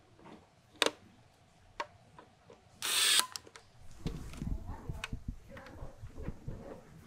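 Two sharp clicks, then a power screwdriver runs in one short burst about three seconds in, driving a screw into a motorcycle helmet's visor mechanism plate. After that comes a busy run of small plastic knocks and clicks as a red plastic part is pressed into the helmet's foam liner.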